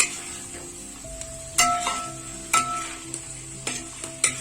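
Ground masala paste sizzling as it fries in hot oil in a karahi, stirred with a spatula that knocks against the pan about five times.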